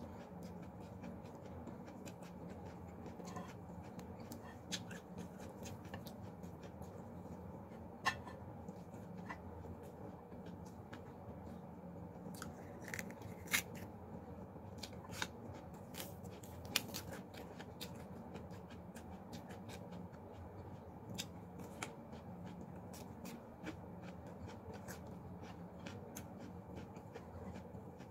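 A person eating with her hands: chewing, with scattered sharp mouth clicks and smacks and the small sounds of fingers picking at fried chicken and vegetables on a plate, over a steady low room hum.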